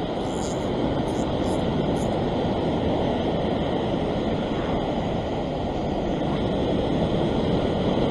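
Surf breaking and washing over coastal rocks: a steady rush of noise.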